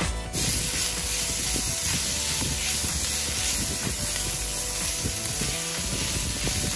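Jackfruit and vegetables sizzling in a cast-iron skillet while a silicone spoon stirs and scrapes through them: a steady sizzle with quick, irregular scraping clicks.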